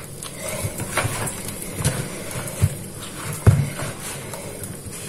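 Hands kneading oat-flour dough in a plastic bowl: soft squishing with several dull thumps as the dough is pressed against the bowl, the loudest about three and a half seconds in.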